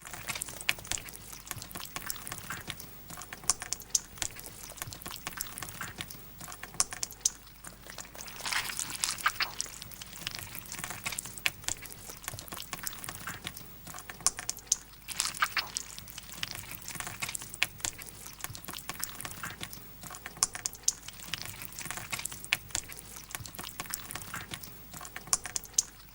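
Gore sound effect of wet flesh squelching and squishing: a continuous mass of moist crackles, pops and clicks that swells and eases unevenly. It begins suddenly out of silence.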